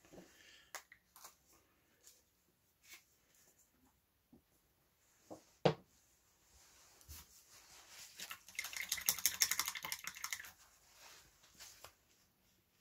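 Small plastic clicks and knocks as paint pots and a screw lid are handled on a cutting mat, with one sharper knock a little before halfway, then about two seconds of fast, dense clicking rattle.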